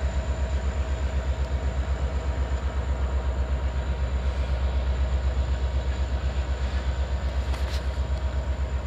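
Diesel freight locomotive working hard under load, a deep steady rumble with an even, rapid throb.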